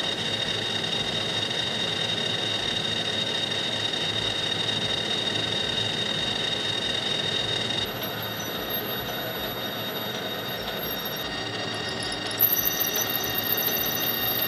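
Metal lathe running and cutting metal: steady machine noise with a steady whine. About twelve seconds in, a high squeal comes in and the sound gets louder as a drill bit in the tailstock bores into the spinning workpiece.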